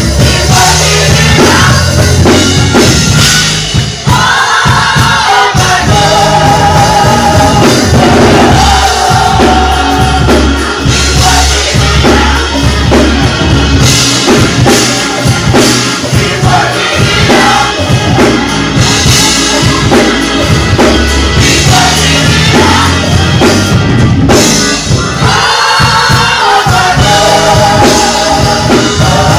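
Music with singing, a choir-like vocal and a steady drum-kit beat, in a gospel style.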